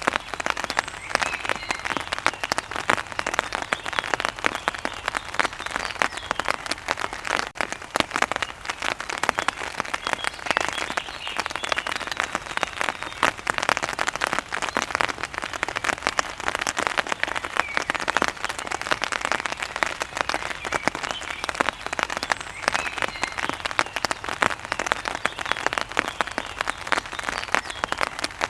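Heavy rain falling steadily, a dense patter of drops on a hard surface.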